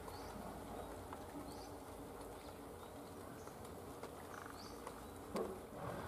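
Faint outdoor ambience with short, high chirps repeating roughly once a second, and a single sharp knock about five seconds in.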